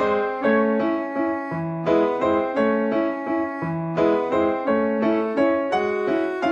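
Background piano music: a melody of struck notes, a few a second, over held lower notes.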